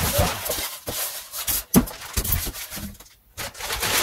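Packing being pulled from a cardboard box: plastic wrapping rustling and a polystyrene foam block scraping against the cardboard, with scattered knocks and one sharp knock just under two seconds in.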